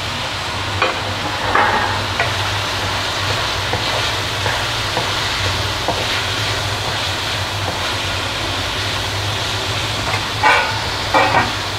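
Vegetables sizzling in a hot nonstick pan as they are stir-fried with a wooden spatula, with a few scrapes of the spatula against the pan. A steady low hum runs underneath.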